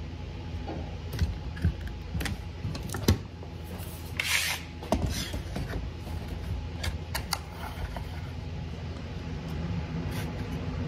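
One-handed bar clamps being set and tightened on a glued-up drawer side: scattered clicks and knocks of the clamp bars and jaws against wood and the bench, with a short rasping burst about four seconds in. A steady low hum runs underneath.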